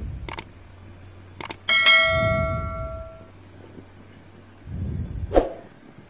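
A metal object struck once, giving a bell-like clang that rings on and fades over about a second and a half, among a few sharp clicks and low knocks from handling.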